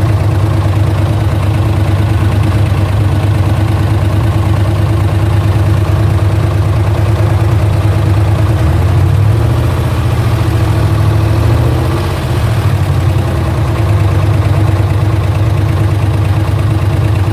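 GM LS1 5.7-litre V8 idling steadily with a ticking noise from the engine. The idle lifts slightly near the middle, then settles back.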